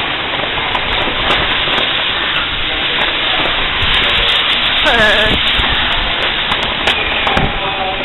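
Heavy rain and strong wind making a steady, loud hiss. About five seconds in, a brief pitched sound slides downward.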